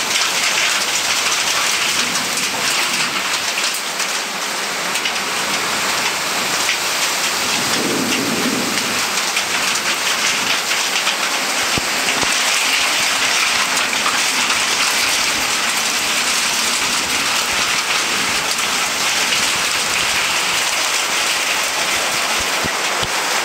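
Heavy rain pouring in a violent windstorm: a loud, steady, dense hiss, with a brief low rumble about eight seconds in.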